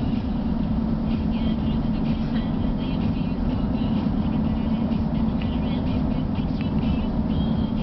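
Steady road and engine rumble heard from inside a moving car's cabin, with a low hum.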